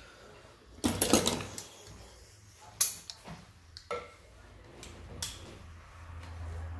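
Metal tools or engine parts being handled on a workbench: a clattering metallic jangle about a second in, then a few separate sharp clicks and knocks.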